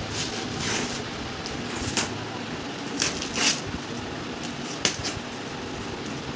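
Packing tape being picked at and pulled off a cardboard shipping box, with several short rips and scrapes of tape and cardboard over a steady hiss.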